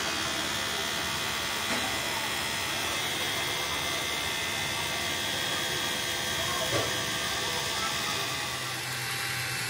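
Handheld angle grinder with a polishing disc running steadily against a chrome-plated excavator hydraulic cylinder rod, polishing the rod's surface, with a steady whine over a rough hiss.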